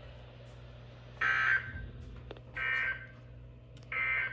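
NOAA Weather Radio SAME end-of-message data bursts: three short, identical two-tone warbling bursts about a second and a half apart, marking the end of the warning broadcast.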